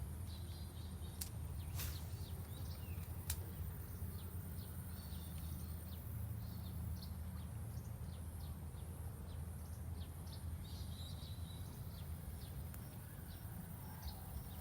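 Outdoor ambience: many short, high chirps of small birds scattered over a steady low rumble.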